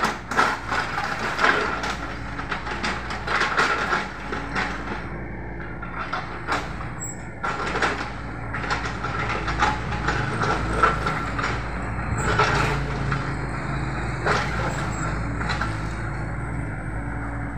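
Mini excavator's diesel engine running steadily while its bucket digs into rubble and soil, with repeated sharp clanks, knocks and scraping from the bucket on debris.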